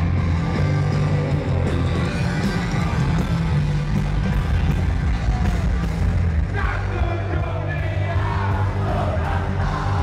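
Live rock band playing loud, with heavy bass and drums. A singer's voice comes in over the band about six and a half seconds in.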